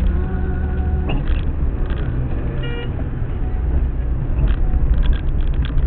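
Steady low rumble of a car's engine and road noise heard from inside the cabin in city traffic. A vehicle horn sounds for about the first second, and a second short horn beep comes a little before the middle.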